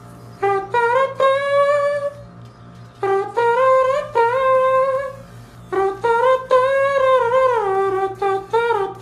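A man humming a wordless melody in a high voice, in three phrases of long held notes that slide gently in pitch, with short breaks between them.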